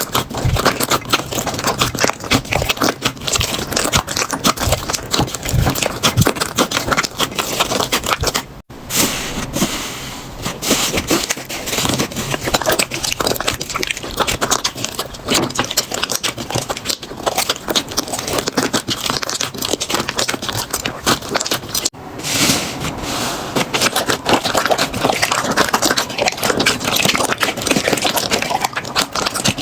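Slime being pressed, squeezed and poked by hand: a dense, loud run of crackling, popping clicks, broken twice by brief drops, about nine seconds in and again about twenty-two seconds in.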